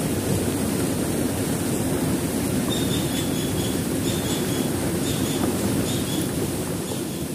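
Small wooden boat's motor running steadily as the boat moves up a creek, a dense low drone. Faint short high-pitched chirps come through around the middle.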